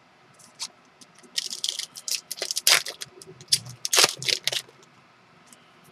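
Trading card pack and cards being handled: a run of quick, crackly rustles and flicks from about one second in to about four and a half seconds in.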